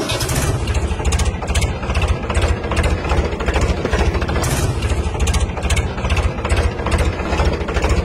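Diesel tractor engine running with a fast, even chug, starting abruptly and carrying on steadily.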